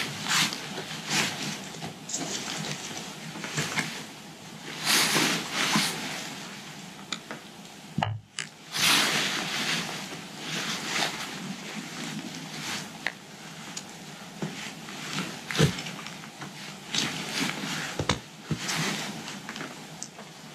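Handling noise of nylon backpack straps and cord being pulled and threaded through a torn hip belt: irregular rustling and scraping in bursts, with a few sharp clicks.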